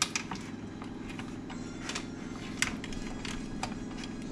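Oil crackling and spitting in scattered irregular ticks on a preheating electric griddle, over a steady low hum.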